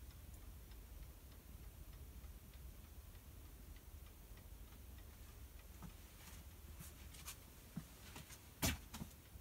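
Quiet room tone with a steady low hum and scattered faint ticks, and a sharper click near the end.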